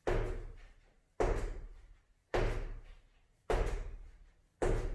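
Medicine ball thrown against a wall in a steady rhythm: five heavy thuds about a second apart, each with an echo that dies away before the next throw.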